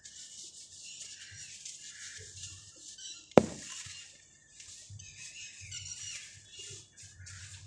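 Dry, crumbly chunks of sand and cement crunching and crumbling in bare hands, with grit and small lumps pattering onto a sandy floor. A single sharp knock about three and a half seconds in is the loudest sound.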